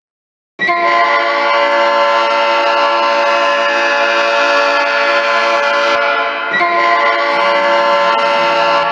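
Recorded hockey goal horn, a multi-chime train-style air horn, sounding one loud sustained chord that starts just under a second in, dips briefly about six and a half seconds in, then sounds again.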